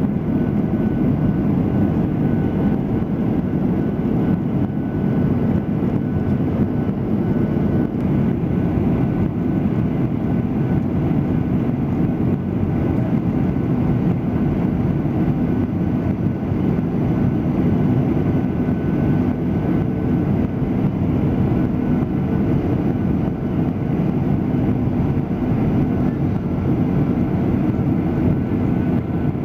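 Steady engine and airflow noise inside a passenger airliner's cabin in flight: an even, low rush with faint steady tones above it.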